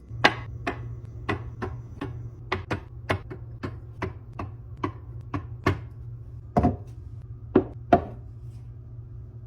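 A run of sharp, dry knocks, about two to three a second and unevenly spaced, a few of them heavier, over a steady low hum.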